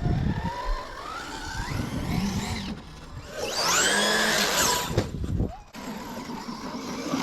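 Battery-powered RC basher car with paddle tires: its electric motor whines, rising in pitch as it accelerates over the first three seconds. A louder high whine then rises and falls around the middle as the motor revs hard, over the rumble of the tires and chassis.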